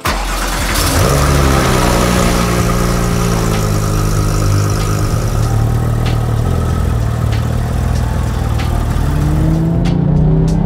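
Porsche 911 GT3's flat-six engine starting up. It catches suddenly, flares briefly about a second in, settles to a steady idle, and then revs up near the end.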